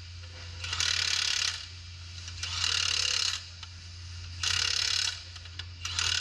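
Impact wrench hammering in short bursts of about a second each, four times, as it runs down the chopper bolts on the harvester's external timer one after another. A steady low hum runs underneath.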